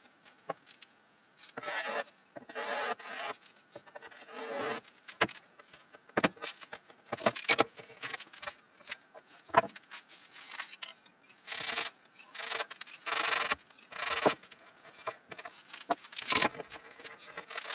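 Steel bar clamps being slid into place and screwed tight on a glued-up wooden panel: irregular short scraping and rubbing strokes, with a few sharp clicks of metal on wood.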